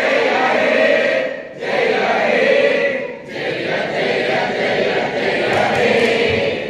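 A group of people singing together in unison, in long held phrases with short breaks between them.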